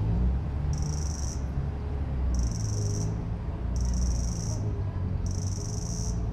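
Low, steady city traffic rumble of engines, with an insect buzzing high above it in four short bursts of under a second each, repeating about every second and a half.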